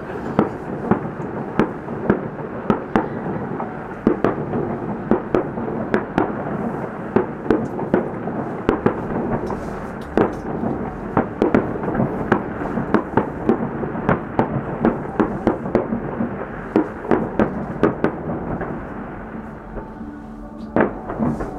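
Distant aerial fireworks shells bursting: a rapid, irregular string of bangs and crackles over a continuous rumble.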